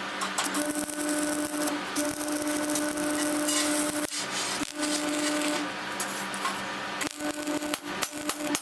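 A tool grinding or rasping on metal with a steady hum. It works in three stretches, broken by short pauses about four and six seconds in.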